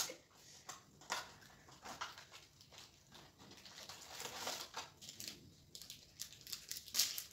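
Biscuit packet wrapper crinkling and crackling in irregular bits as it is handled and opened, with a louder crackle near the end.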